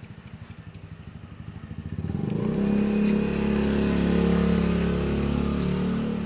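Motorcycle engine running. It starts as a low, quick putter, and about two seconds in it becomes a louder, steady engine drone that holds.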